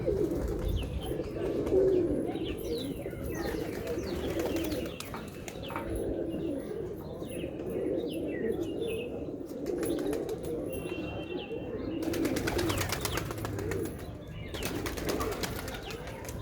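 Domestic pigeons cooing continuously in a low, warbling chorus, with two bursts of wing flapping about twelve and fifteen seconds in.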